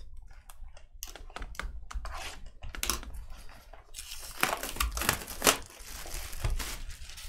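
A baseball card pack being torn open and handled: the wrapper tearing and crinkling in a string of short rustles and clicks, busiest from about four seconds in.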